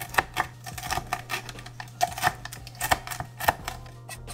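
Chef's knife chopping crisp cooked bacon on a wooden cutting board: quick, irregular crunchy chops, several a second.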